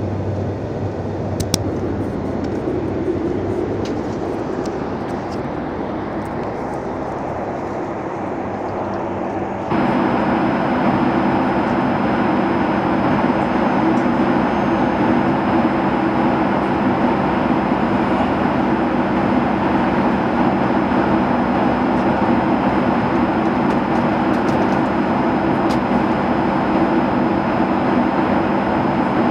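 Steady cabin noise of a Boeing 757 airliner in cruise flight: engine and airflow noise inside the passenger cabin. About ten seconds in it gets suddenly louder, with a deeper steady drone and a faint thin high tone above it, and a few small clicks early on.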